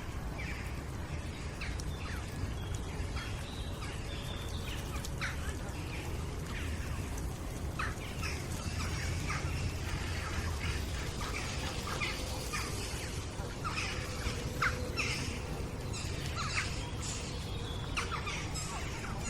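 Playground ambience: birds chirping and calling throughout, with the voices of children playing in the distance over a steady low rumble.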